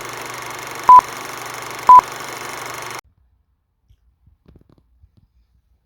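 Three short, loud electronic beeps at one steady pitch, a second apart, over a steady hiss. The beeps and hiss cut off suddenly about three seconds in, leaving near silence.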